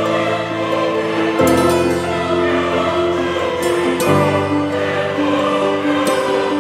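Background music with choral singing: sustained chords that change about every two and a half seconds.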